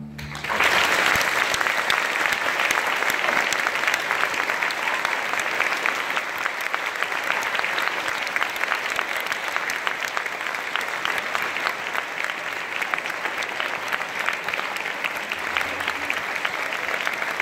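Audience applause, starting about half a second in and continuing steadily as many people clap together.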